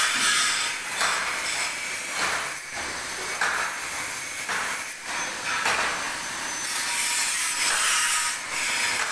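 Metal workshop noise: rough scraping and hissing that swells and fades in surges about once a second, the sound of metalworking.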